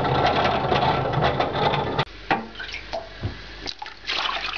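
Front-loading washing machine running: a steady motor hum with water noise, which cuts off abruptly about two seconds in. A few scattered knocks and water sounds follow.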